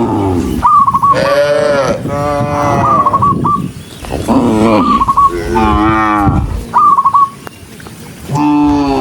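Cows mooing, one long call after another, about half a dozen in all, some overlapping, each bending in pitch.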